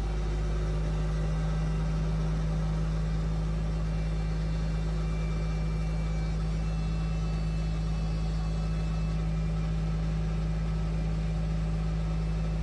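Sewage suction truck's vacuum pump and engine running with a steady low drone, pulling mud and sewage up through the suction hose.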